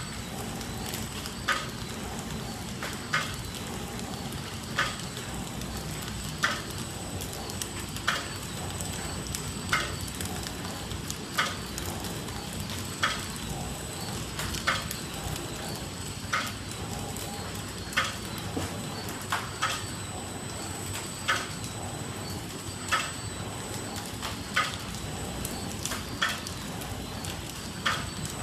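250X down-paper flow pack wrapping machine running steadily, with a constant high whine and a sharp clack about every second and a half as it cycles through packs.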